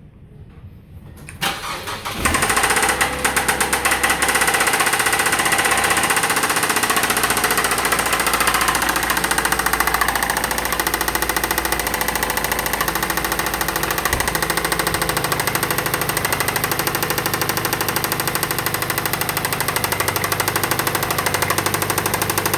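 2008 Mazda 6 engine cranked and catching about two seconds in, then running loudly with a fast, even clatter; its idle note shifts lower a little over halfway through.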